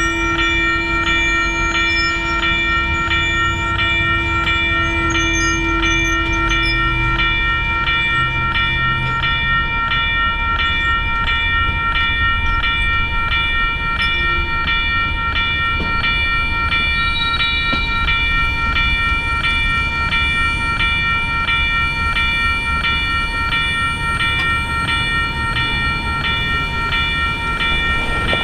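Railroad crossing bell ringing steadily, about two strikes a second, while a train rolls past with a steady low rumble.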